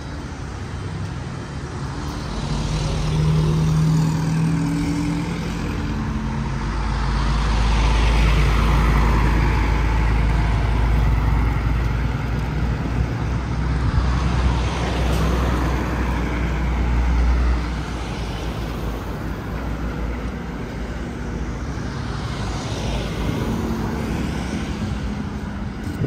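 Road traffic: motor vehicles going by one after another, engine hum and tyre noise swelling and fading as each one passes, with a heavy low rumble through the middle.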